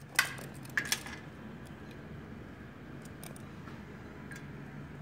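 Metallic clicks and rattles of a steel tape measure being drawn out and its hook set against a table saw's rip fence: the loudest click just after the start and two more about a second in, then a few fainter ticks.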